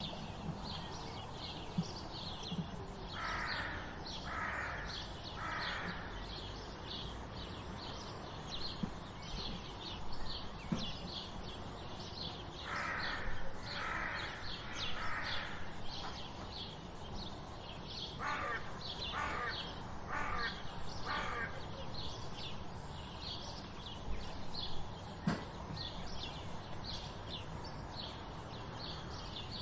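Morning birdsong: sparrows chirping steadily, two or three short high chirps a second, with a steady low background rumble. Three times, a louder, harsher bird call cuts in, in runs of three or four calls about a second apart.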